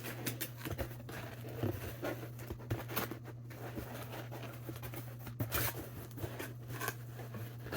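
Cardboard pizza box being handled and pushed shut: scattered scrapes, taps and rustles of cardboard flaps, over a steady low hum.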